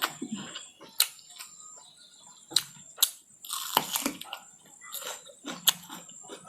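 Close-miked eating: chewing with sharp, wet mouth clicks and smacks coming at irregular intervals, about eight in a few seconds.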